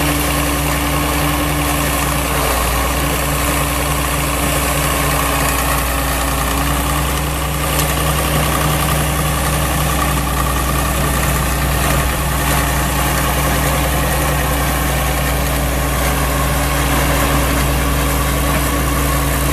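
Caterpillar D5 crawler dozer's diesel engine running steadily at low speed as the dozer crawls and turns on its tracks.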